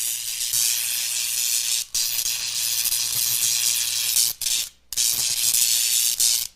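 Electricity sound effect: a steady crackling, fizzing hiss of electric arcing over a faint low hum, briefly cutting out about two seconds in and for half a second near five seconds.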